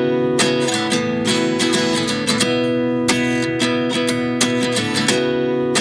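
Background music of a strummed acoustic guitar, with chords struck in a quick, even rhythm.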